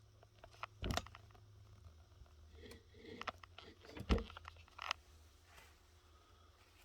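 Handling noise of small cleaned ratchet parts: a few light knocks, about a second in and around four and five seconds in, with soft scraping and rustling between them.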